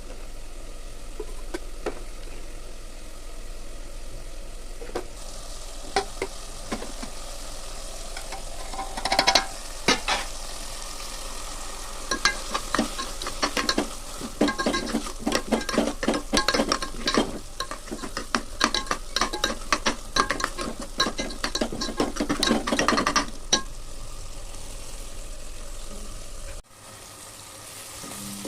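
Chutney sizzling as it fries in a pan, with a spoon stirring and scraping against the pan in quick clicks through the middle of the stretch. The sound cuts off abruptly near the end.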